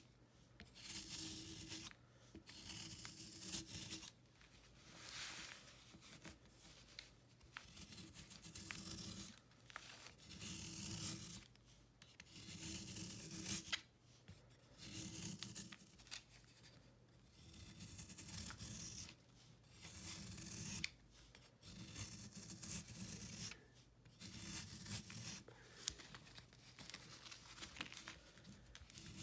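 Snap-off utility knife blade scraping and carving a marbled block of baking soda, chalk and calcium carbonate, shaving off crumbly flakes in repeated strokes about every second and a half. There are a few sharp clicks among the strokes.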